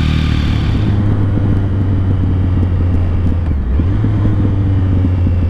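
Triumph Speed Triple's inline three-cylinder engine running at a steady pitch under the rider, through its stock dual high-mount exhausts, with some wind noise. A brighter, raspier engine sound gives way to it about a second in.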